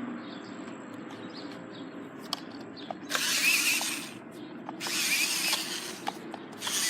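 Electric RC car driven in short bursts of throttle: its motor whines and the tyres rush over the ground three times, each burst lasting under a second, over a steady low hum.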